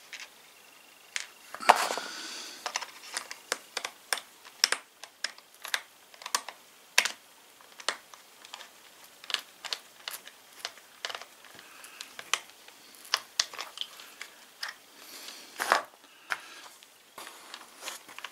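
Plastic housing halves of a cordless mini chainsaw being fitted together and screwed shut with a small screwdriver: irregular light clicks and taps of plastic and metal, with a louder knock and brief scrape about two seconds in.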